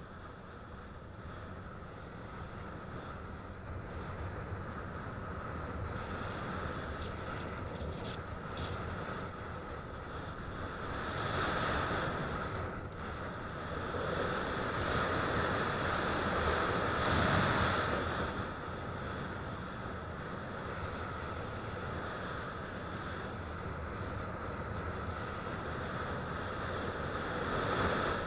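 Wind rushing over the microphone of a camera in flight, a steady rush that swells louder twice, about eleven seconds in and again from about fourteen to eighteen seconds.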